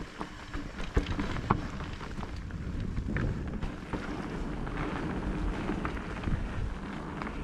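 Electric mountain bike riding over a rough dirt trail: tyres rolling over dirt and stones, with a low rumble and sharp knocks and rattles from the bike, the strongest about one and one and a half seconds in.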